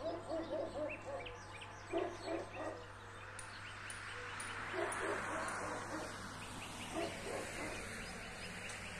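An animal calling outdoors in four short bursts of quick, low notes, a few seconds apart, over faint high chirping of small birds; a soft swell of noise rises and fades around the middle.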